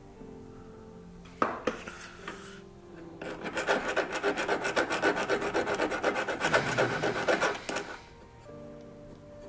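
Hand needle file rasping in rapid back-and-forth strokes across the edge of a silver ring braced on a wooden bench pin, for about four and a half seconds from about three seconds in. A single sharp click comes shortly before the filing.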